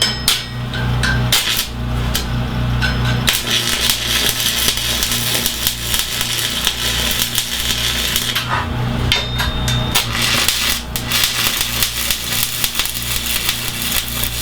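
Electric arc welding on a steel bracket: two long runs of steady arc crackle and hiss, the first about five seconds and the second about four, with a short break between, over a steady low electrical hum.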